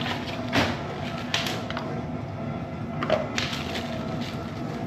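A few sharp clicks and knocks with light rustling, typical of hands handling small computer parts and hardware such as screws, standoffs and washers.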